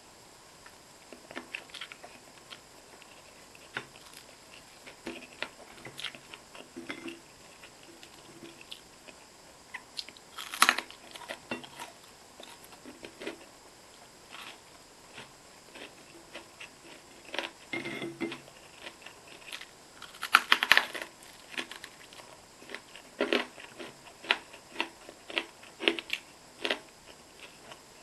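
Close-miked eating: steady chewing with wet mouth clicks and smacks, and two louder crunchy bites about ten and twenty seconds in.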